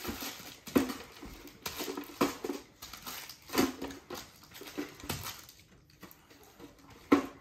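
Wrapped candy being dropped into a hollow plastic jack-o'-lantern pail: irregular wrapper crinkles and light clatters as the pieces land, with a sharper knock near the end.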